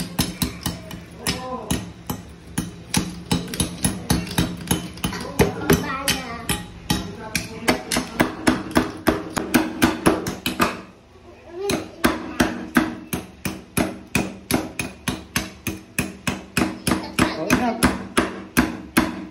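A metal spoon striking a ball of ice again and again to chip it open, about three sharp knocks a second, with a brief pause about halfway through.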